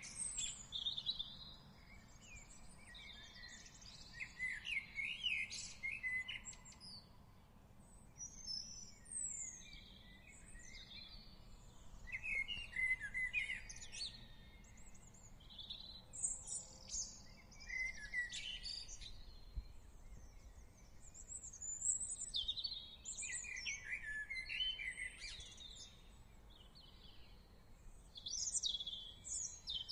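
Songbirds singing and calling: short chirps and trills come every second or two, several birds overlapping, over a faint low background hum of the outdoors.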